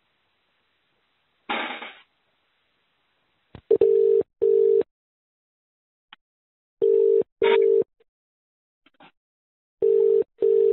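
Telephone ringback tone heard down the phone line while the call is being put through: a double ring, two short beeps close together, repeated three times about every three seconds. It follows a short burst of line noise.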